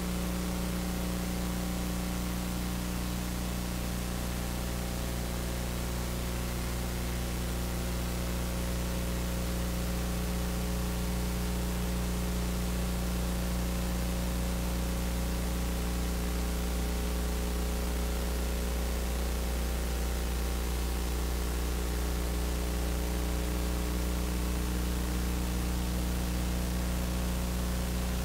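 Steady hiss with a low electrical hum under it, unchanging throughout: background noise of an open audio feed with no program sound.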